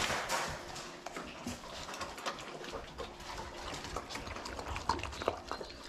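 Large American bully dogs eating wet food from steel bowls: irregular chewing, slurping and smacking with small clicks, after claws tapping on a hardwood floor as they reach the bowls.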